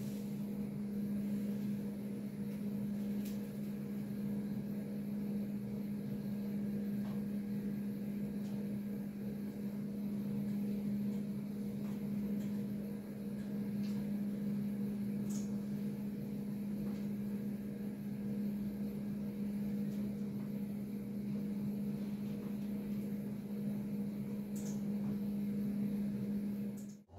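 Steady low mechanical hum with a constant low tone, with a few faint ticks over it.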